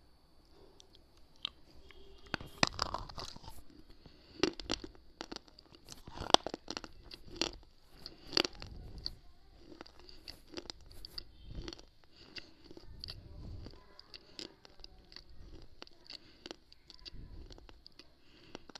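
Biting and chewing a white slate cube right at the microphone: a run of sharp, brittle crunches, loudest in the first half, giving way to softer, quicker chewing toward the end.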